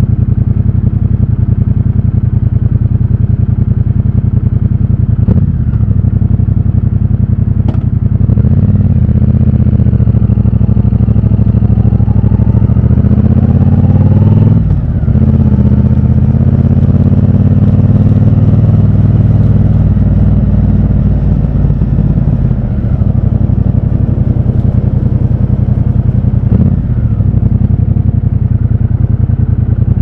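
Triumph Bonneville Bobber's 1200 cc parallel-twin engine running under the rider at low city speed, its exhaust note rising and falling with the throttle. The pitch climbs steadily from about a quarter of the way in, then drops sharply about halfway through. There are two sharp clicks in the first third.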